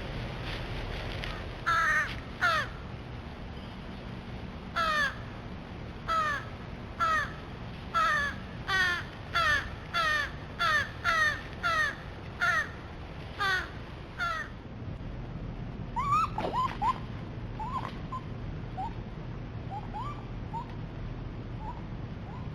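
Crows cawing: about fourteen loud, harsh caws in a ragged series, coming faster toward the middle. In the last several seconds there are fainter, shorter calls.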